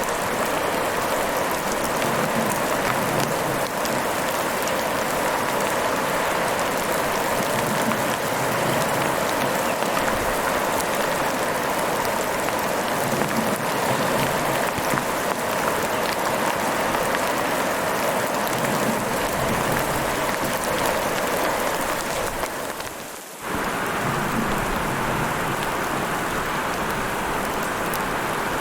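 Heavy rain falling steadily, a dense even hiss with fine pattering of drops. The sound drops away for a moment about two-thirds of the way through, then resumes at full strength.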